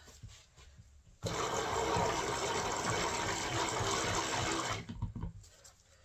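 Handheld stick (immersion) blender switched on in a small jug of purple-tinted cold-process soap batter, whirring and churning the batter for about three and a half seconds before it is switched off. It is a short pulse of blending to bring the batter to a thicker consistency.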